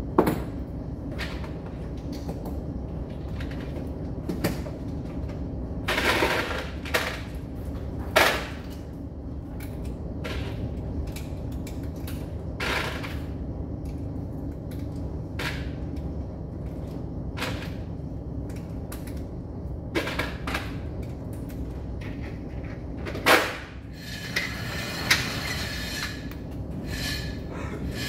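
Scattered sharp knocks and clicks, a handful of louder ones among many small ones, over a steady low rumble.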